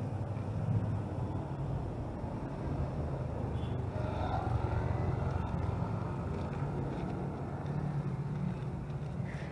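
Steady low rumble of road traffic, an engine-like drone that holds level throughout, with some fainter higher sounds a little before the middle.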